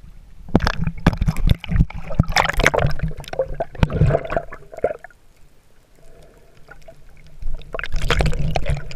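Sea water splashing and gurgling around a camera at the water surface as it dips under, in crackling bursts from about half a second in to five seconds, then again near the end.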